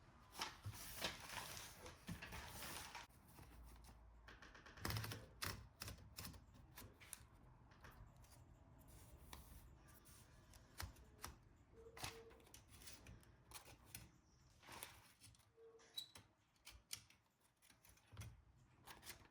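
Faint, irregular clicks and taps from a Smith-Corona Skyriter portable typewriter, with a denser run of clicks about five seconds in.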